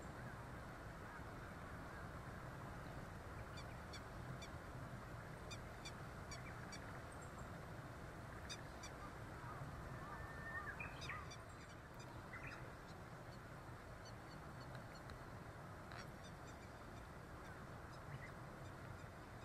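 Faint open-air ambience with a steady low background noise and distant wild birds calling: a run of short high chips during the first half, then a brief call about halfway through and a few faint single notes.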